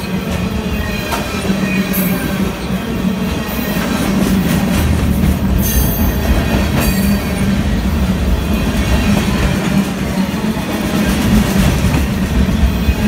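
Freight train of empty flatcars for wind-turbine parts rolling past close by, with the steady running noise of steel wheels on rail. A few brief sharp high noises break through about 2, 6 and 7 seconds in.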